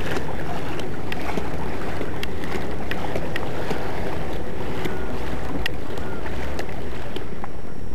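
Steady wind noise on the microphone, with scattered sharp little ticks throughout.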